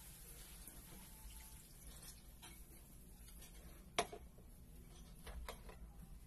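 Quiet low hum with a few faint clicks, and one sharp knock about four seconds in.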